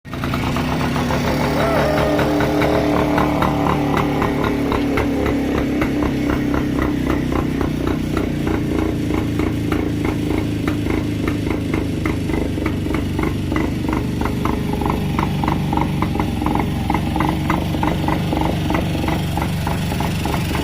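Restored stock two-stroke engine of an old Yezdi motorcycle idling steadily, with a rapid, even exhaust beat; the engine is running again after standing unused for 15 years.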